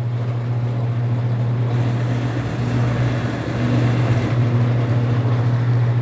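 Motor of a BWS-80 HD electric wire stripping machine running with a steady low hum while a length of 10-gauge wire is fed through its cutting channel, set one hole too small so the blade nicks the copper.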